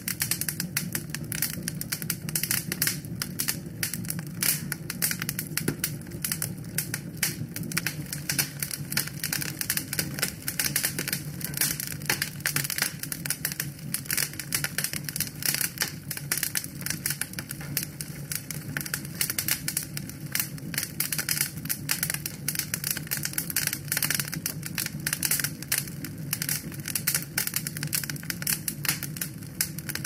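Log fire crackling: a dense, irregular run of sharp pops and snaps from the burning wood over a steady low rush of flame.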